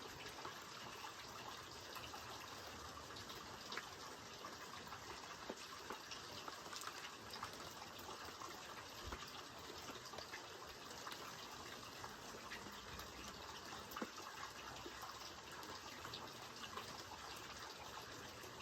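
Steady rain falling, an even hiss with scattered patters and drops.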